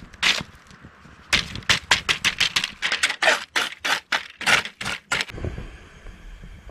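Wire grill brush scrubbing a charred barbecue grate: a quick run of scraping strokes, about three or four a second, that stops a little past five seconds, after which only a low steady rush remains.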